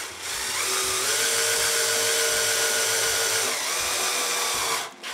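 Cordless drill/driver running under load into a wooden board, with a steady whine. The whine picks up about a second in, drops a little past the middle, and the motor stops near the end.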